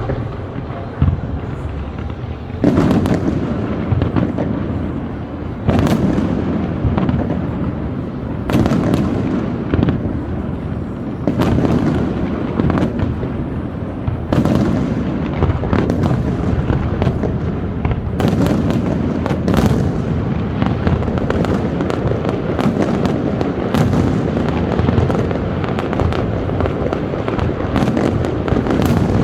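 Fireworks display: sharp bangs one after another, each with a rumbling tail, coming more often from about two-thirds of the way in.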